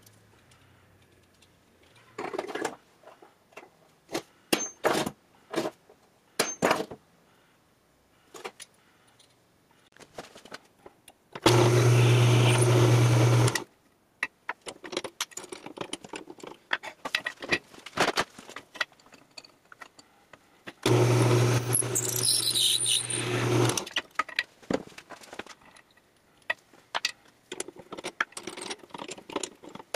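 Drill press motor running twice for about two seconds each, a steady hum while drilling into a black iron pipe tee. Between and around the runs, sharp clicks and clinks of metal tools and fittings being handled.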